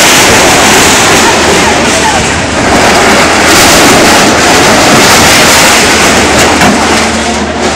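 Loud, distorted din of a crowd in the street: many voices blurred into a dense, unbroken noise.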